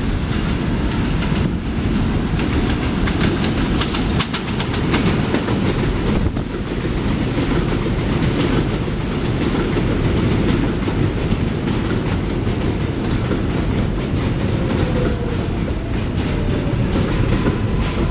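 Kawasaki R188 subway train pulling into an elevated station: a loud, steady rumble of wheels on rail, with a run of clicks as the wheels cross rail joints in the first half. A faint falling whine comes in a few seconds before the end as the train slows.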